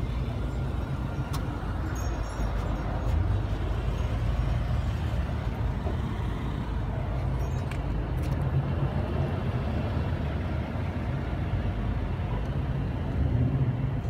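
Steady low rumble of car engines running, with a few faint clicks.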